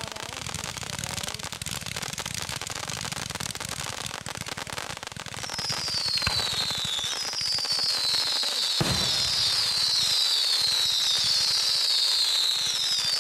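Consumer fireworks cake firing at close range: a dense, rapid crackle of shots and bursts. From about halfway a string of whistling effects sounds over it, each a high whistle falling in pitch, with two heavier bangs standing out in the middle.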